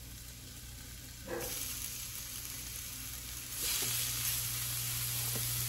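Pork chops searing in a little oil in a hot cast iron skillet, a steady sizzle that gets louder in two steps, about a second and a half in and again past three and a half seconds, as more chops are laid into the pan.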